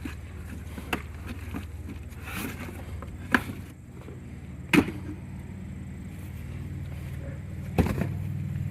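Scattered sharp clicks and knocks from handling the packaging and parts of a new boxed chainsaw, about four in all, over a steady low hum.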